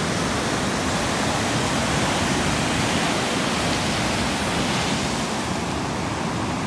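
Surf breaking on the shore: a steady rush of noise with no pauses or sudden sounds.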